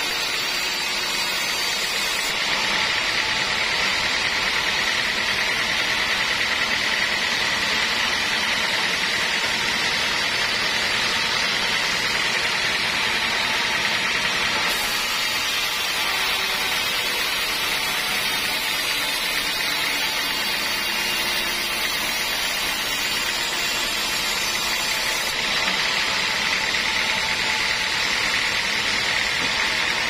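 A sawmill band saw cutting lengthwise through a teak log. The machine runs on steadily as the blade feeds through the wood, with a constant high hiss above the motor noise.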